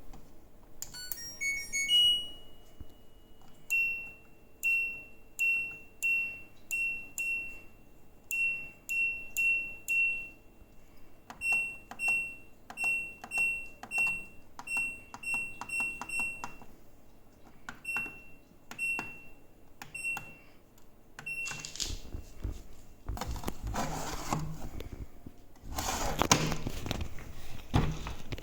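LG washing machine control panel: a short power-on jingle, then a long series of identical button-press beeps, each with a click, as settings are selected. Near the end the machine starts working with a rushing noise and a low rumble.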